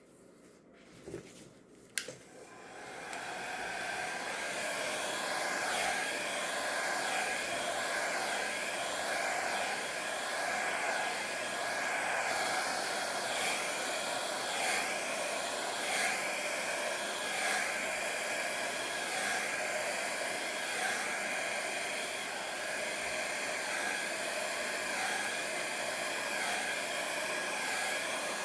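Travel mini hair dryer (1000-watt ceramic ionic) starting with a click about two seconds in, spinning up, then blowing steadily with a faint whine. Its level swells slightly every second or two. It is blowing out wet acrylic paint in a Dutch pour.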